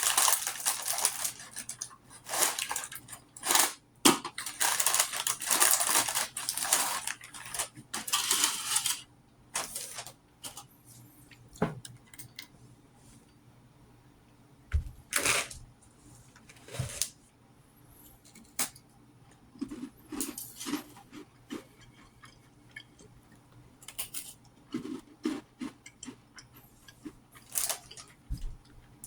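Crackers being handled and eaten close to the microphone: dense, crisp crackling in quick bursts for about the first nine seconds, then only scattered light clicks and taps.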